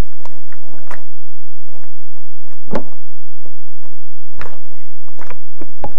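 Loose flat stones knocking and scraping against each other as they are moved by hand, a string of separate knocks and short scrapes, the loudest about a third and two thirds of the way through.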